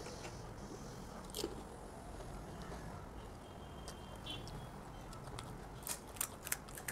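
Eating pani puri: chewing, with crisp hollow puri shells cracking, once about a second and a half in and several times in quick succession near the end.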